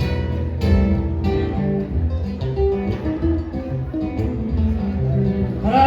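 Acoustic guitar playing the instrumental introduction of a gaúcho festival song: plucked notes and strums over low sustained notes.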